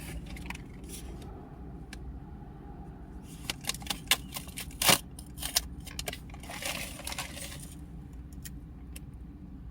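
A plastic bakery cookie package being handled and turned over, with a run of sharp crinkling clicks and crackles in the middle and one louder click about five seconds in. A steady low hum sits underneath.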